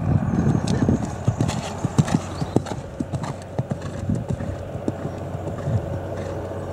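Horse landing from a jump and cantering on a sand arena, its hoofbeats loudest at first and growing fainter as it moves away.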